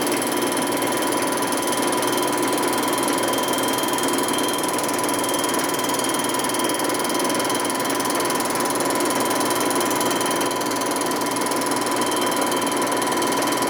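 Metal-cutting machine tool running steadily with a steady whine, its bit facing off the gasket surface of a Harley-Davidson Sportster engine part. The bit is dull and leaves a torn finish.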